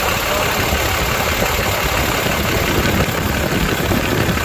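Cummins 6.7-litre inline-six turbodiesel idling steadily.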